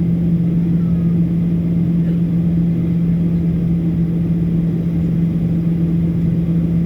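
Boeing 737 jet engines heard from inside the passenger cabin: a loud, steady drone with a strong low hum that holds one pitch over a low rumble.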